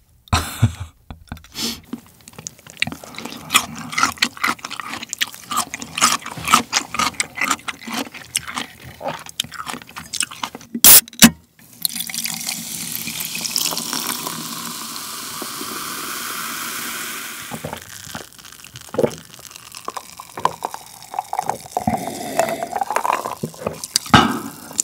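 Small clicks and crackles, then an aluminium soda can snapped open with two loud cracks. Cola is poured over ice into a glass, fizzing in a steady hiss for about six seconds, followed by scattered fizzing pops and gulps of the drink.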